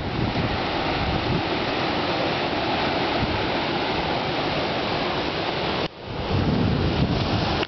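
Ocean surf breaking and washing over dark shoreline rocks, a steady rushing of foaming water. The sound drops out sharply for a moment about six seconds in, then returns.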